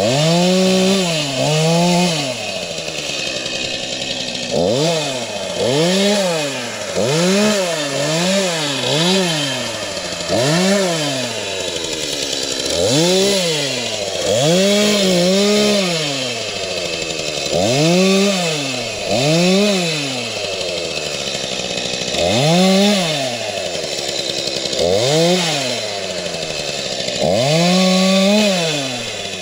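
Stihl MS231 two-stroke chainsaw engine revved up and let back down over and over, each burst a rising-then-falling whine, about one every one to two seconds.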